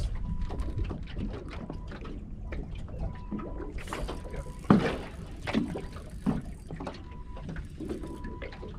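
Small fishing boat drifting, with water slapping against the hull and wind rumbling. Short knocks and handling sounds come and go, with one sharp knock a little before halfway. A faint high tone sounds on and off.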